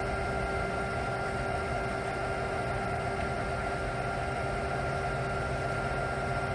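LeBlond Regal hollow-spindle gap lathe running under power with its threading feed engaged: a steady mechanical hum from the spindle drive and gearing, with a couple of constant whining tones.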